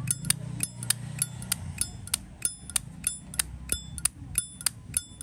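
Zippo lighter lid being flicked open and snapped shut over and over, sharp metallic clicks with a short ringing ping, about three to four a second. It is the crisp open-and-close sound of a Zippo whose insert matches the case, which the seller calls a nice sound.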